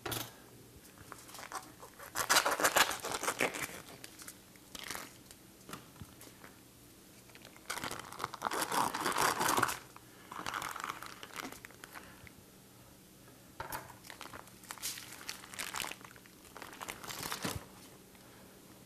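Plastic wrapping on a rack of pork ribs crinkling and tearing as it is slit open with a knife and pulled off, in several bursts of a second or two.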